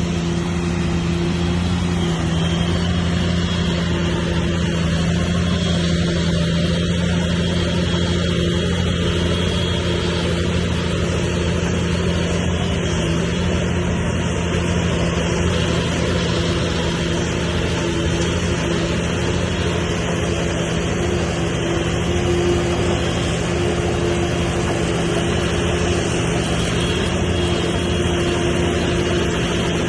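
Diesel engine of heavy earthmoving machinery running steadily at a constant pitch.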